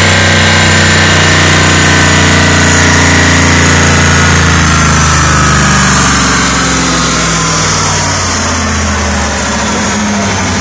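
The 1988 Pontiac Trans Am WS6's 5.7-litre L98 V8, fitted with headers and a full exhaust, idling just after a dyno pull. Over it, the rear wheels and dyno roller spin down with a whine that slowly falls in pitch, and the sound eases a little after about six seconds.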